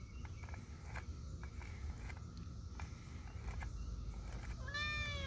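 Domestic cat gives one short meow that rises and falls, near the end, while a grooming brush is being drawn through its fur. Under it, faint ticks from the brushing and a low steady hum.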